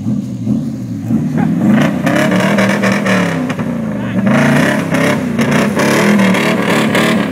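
V8 engine of a Toyota Land Cruiser FJ60 revving hard in repeated surges, its pitch rising and falling, as the wheels spin in loose dirt and throw it up.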